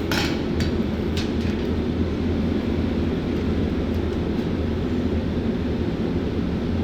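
Steady low hum of shipboard machinery, with a few short clicks in the first second and a half.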